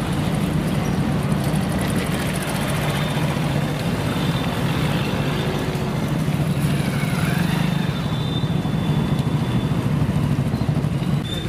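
Motorcycle engines running at low speed, a steady drone, as motorcycles ride slowly through a muddy, waterlogged road.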